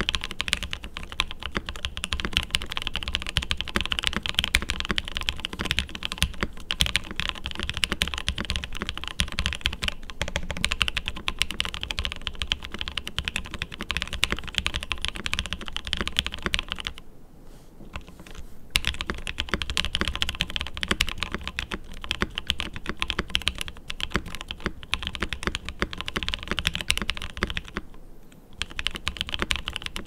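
Fast, continuous typing on a Mode65 custom mechanical keyboard with a black POM plate, lubed Creampaca switches and GMK keycaps: a dense stream of key clacks. The typing stops briefly twice, a little past halfway and again near the end.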